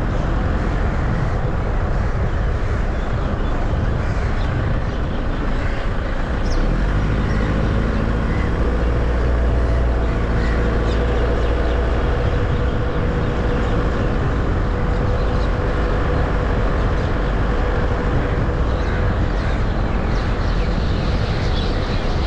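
A car being driven along a road: steady engine and tyre road noise, with the low rumble a little heavier for a few seconds around the middle.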